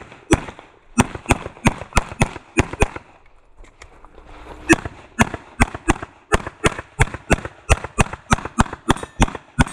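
Rapid 9mm Glock pistol fire: about seven shots in quick pairs over the first three seconds, a pause of about two seconds, then a steady string of about fifteen shots, roughly three a second.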